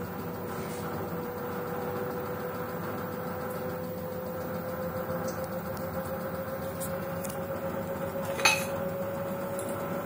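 LG Direct Drive 7 kg front-loading washing machine running, its direct-drive motor giving a steady whine that rises slowly in pitch as the drum picks up speed over a low hum. There is one sharp click about eight and a half seconds in.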